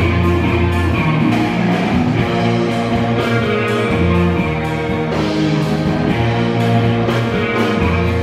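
Live rock band playing an instrumental passage, electric guitars to the fore over a steady beat.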